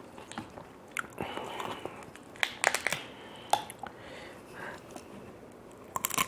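Grilled tiger prawns being shelled and eaten by hand close to the microphone: scattered sharp shell cracks and clicks, crinkly crackling and wet chewing.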